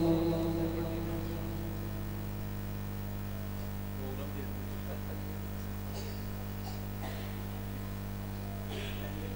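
Steady electrical mains hum from a public-address sound system, as the reverberant tail of a man's Quran recitation dies away in the first second or so. Faint murmurs and shuffles come now and then over the hum.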